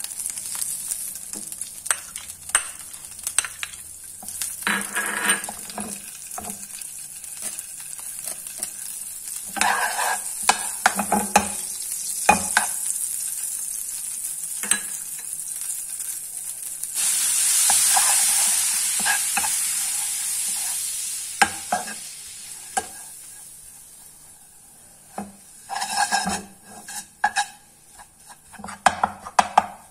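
Butter sizzling in a non-stick frying pan, with scattered taps and scrapes of a spoon against the pan. Just past halfway the sizzle jumps suddenly louder as food goes into the hot butter, then dies away. Near the end a ceramic spoon stirs and scrapes the food around the pan in a run of clatters.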